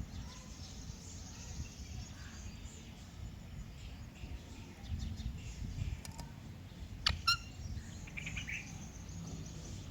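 A parrot giving a few short calls: two sharp ones close together about seven seconds in, then a brief chirp a second later, over a low steady rumble.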